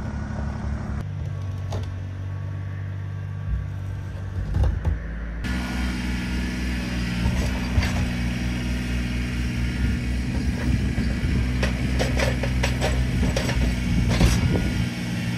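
Kubota BX23S compact tractor's three-cylinder diesel engine running steadily, with a run of knocks and rattles over the last several seconds as its front loader moves a junk fiberglass boat.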